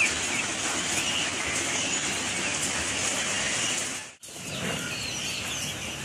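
Dense, steady din of many chicks peeping in a poultry shed, broken by a brief dropout about four seconds in, after which individual bird calls stand out.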